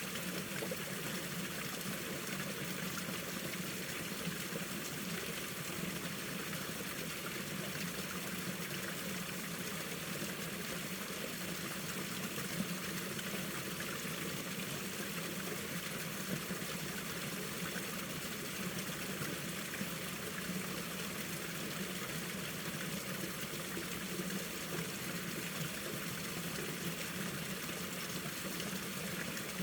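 Mountain stream in winter flowing steadily over rocks, a constant rushing and trickling of water.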